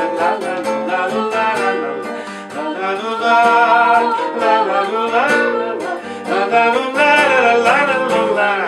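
Acoustic guitar strummed under singing voices carrying a wordless 'la-la' refrain between verses of a bard song.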